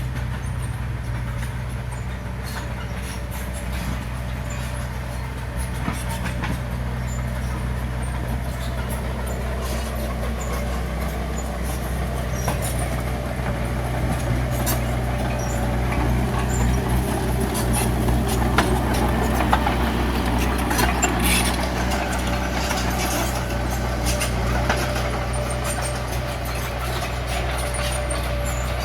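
Bulldozer's diesel engine running steadily, with clanking and rattling from the machine at work that gets busier around the middle.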